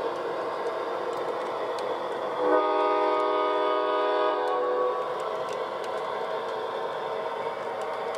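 O gauge model Amtrak train running past: the locomotive's electronic sound system gives one horn blast of about two seconds, starting about two and a half seconds in, over the steady running noise and light clicking of the passenger cars' wheels on the track.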